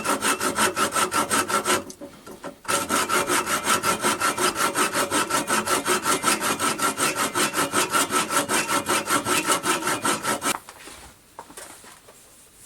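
A wooden file handle spinning in a Smart and Brown model L metal lathe is being worked, with an even rasping rub repeating about seven times a second over the lathe's steady running tone. The rasping pauses briefly about two seconds in and stops near the end.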